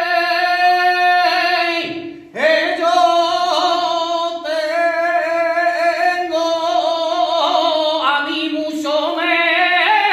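A male flamenco cantaor singing a martinete unaccompanied: long held notes with wavering, ornamented melisma. He breaks off briefly for breath about two seconds in, then goes on.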